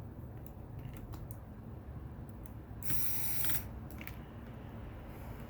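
Small sharp clicks and ticks of a precision screwdriver and tiny metal screws on the opened iPhone 8's internals, with one brief rasping noise about three seconds in.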